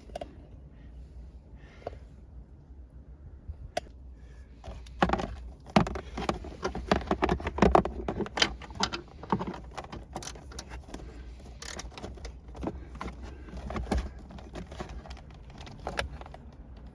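Hand tools clicking and rattling against metal parts of a car, with a dense run of small clicks and knocks from about five to ten seconds in and scattered single clicks after.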